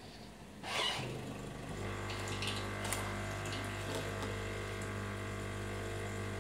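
Jura ENA 8 coffee machine brewing an espresso shot: a short hiss about a second in, then its pump hums steadily as the espresso runs into the glass.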